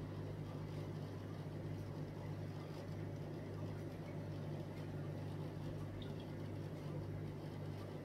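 Steady low electrical hum of running aquarium equipment, with a faint hiss above it.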